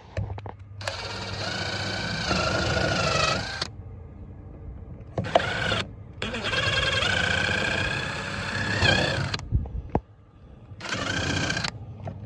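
Cordless drill running in four bursts, two long and two short, its whine sagging in pitch as the bit bites: drilling or driving screws into the truck or sub box.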